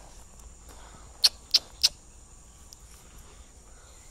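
A dog barking three times in quick succession, short sharp barks.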